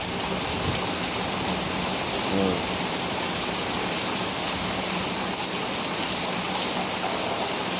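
Heavy rain pouring down, a steady even hiss of downpour.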